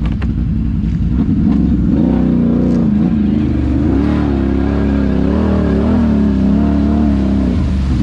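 Off-road vehicle engine running under throttle, its pitch rising and falling repeatedly as it is worked.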